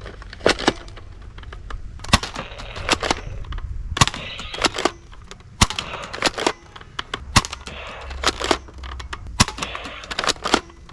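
Toy blaster gun being handled: irregular sharp plastic clicks and knocks, about one or two a second, with some rustling between them.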